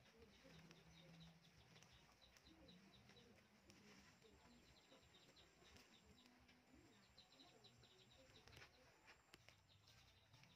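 Near silence: faint outdoor ambience with a bird chirping in quick runs of short high notes in the distance.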